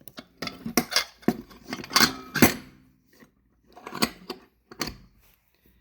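Metal engine parts being handled and knocked together: a quick run of clinks and clanks with brief metallic ringing, then a few more knocks about four seconds in.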